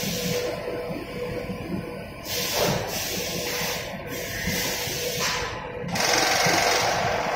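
Automatic flour packing machine and its bag-sewing head running while a sack fills with oat flour: a steady mechanical rattle, with a high hiss that cuts in and out several times.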